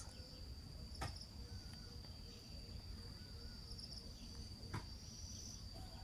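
Faint outdoor ambience: a steady high-pitched insect trill, with a few faint bird chirps and two soft clicks, about a second in and near the end.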